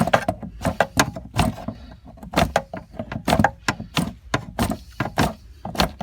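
Hammer tapping a screwdriver against the plastic lock ring on top of a car's fuel pump assembly to drive the ring round and loosen it: a run of sharp, irregular knocks, about three a second.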